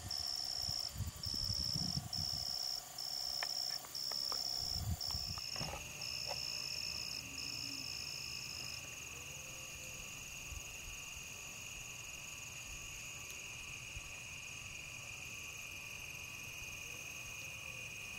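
Insects trilling: a high pulsed trill in phrases about half a second long until about nine seconds in, joined about six seconds in by a steady, lower-pitched continuous trill that carries on. Low rumbling noise in the first five seconds.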